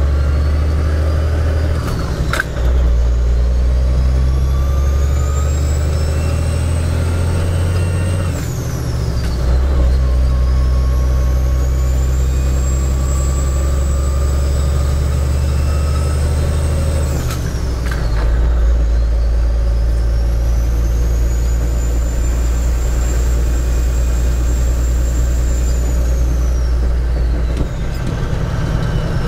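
A heavy truck's diesel engine pulling through the gears of its manual transmission: the engine drone and a high whine climb and level off in each gear, then drop at each of three shifts, with an occasional sharp clunk.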